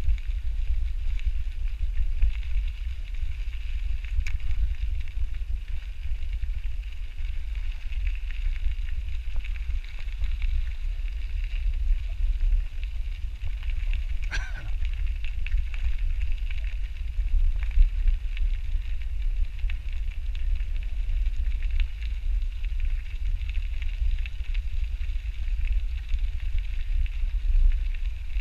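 Wind buffeting the microphone of a bicycle-mounted action camera during a ride over a gravel trail, a steady low rumble with tyre hiss and crackle from the gravel. A brief high squeak sounds about halfway through.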